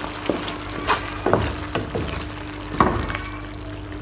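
Wooden spoon stirring a simmering chicken and asparagus stew in a nonstick frying pan: about five short scrapes and knocks against the pan, the loudest near three seconds in.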